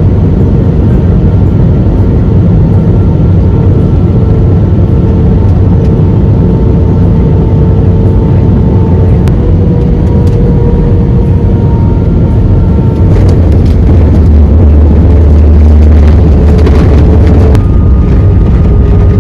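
Airbus A320 cabin noise in flight: a loud, steady engine drone with a low rumble and a few steady whining tones. About 13 seconds in the low rumble grows louder, and near the end the whine shifts in pitch.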